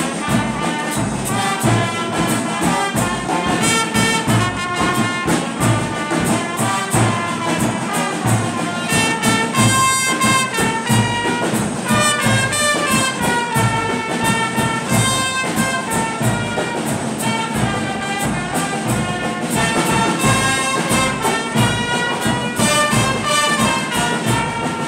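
A brass band of trumpets and trombone plays a tune over a steady drum beat.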